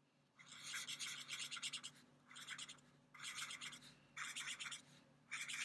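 Art marker nib scratching across a sheet of shrink plastic as it is coloured in, in five short bouts of scratching with brief pauses between, the first the longest.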